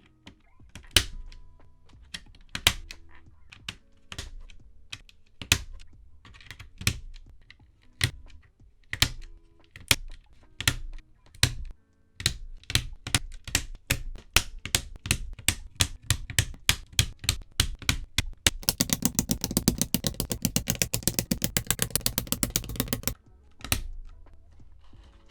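Typing on a Keychron K2 mechanical keyboard with Akko Matcha Green switches: slow, separate key presses at first, then quicker typing, building to a fast continuous run of keystrokes that stops abruptly, followed by one last press.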